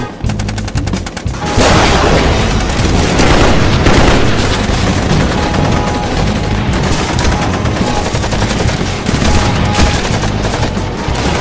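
Music with a steady beat, joined about a second and a half in by a loud, dense crackling crowd racket of cheering and clapping that continues over it.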